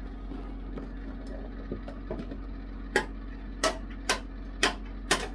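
A run of sharp, light clicks or taps at slightly uneven spacing, about two a second, getting louder about three seconds in, over a steady low hum.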